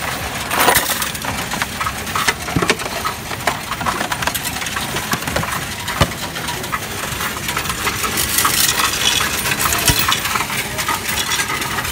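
Loose coins poured into the perforated tray of a coin-counting machine and pushed through by hand: a steady, dense clatter of coins clinking against metal and each other.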